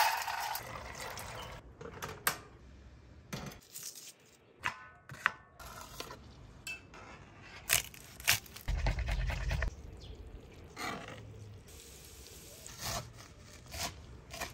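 A mix of dried beans poured into a steel pot with a loud rattling rush, then a series of sharp knife strikes and scrapes on a wooden cutting board as garlic and fresh herbs are chopped. A brief low rumble comes a little past the middle.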